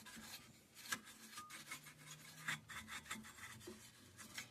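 Faint, irregular rubbing strokes of dust being cleaned off an LED TV's power supply circuit board.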